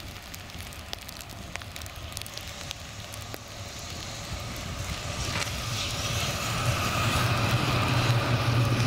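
Articulated tram running along snow-covered rails and passing close by, its rumble growing steadily louder, with a low steady hum coming in during the last few seconds as it draws level.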